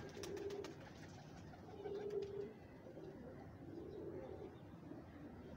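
Domestic pigeons cooing faintly, a string of short low coos about a second apart, with a few light clicks near the start.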